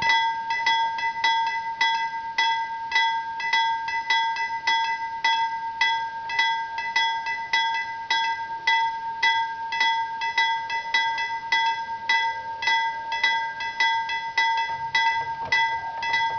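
Swedish level-crossing warning bells ringing in rapid, repeated strikes of one bright bell tone, signalling the barriers are coming down. The ringing stops abruptly near the end, as the barrier booms reach the lowered position.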